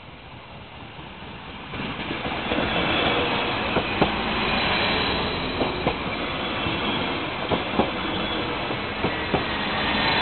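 Stadler GTW diesel multiple unit passing close by at a level crossing. Its running noise swells in about two seconds in and stays loud, with paired clicks as the wheels of each bogie cross rail joints.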